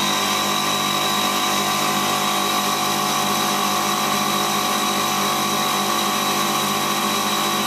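Refrigeration condensing unit running: compressor and condenser fan motor humming steadily, a dense even machine drone. The fan is turning slowly on its new speed controller, not yet up to full speed.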